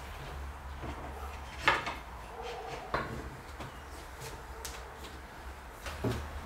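Knocks and clunks from handling the metal bar clamps on a glued-up wooden frame: three distinct knocks, the loudest about two seconds in, the others at about three and six seconds.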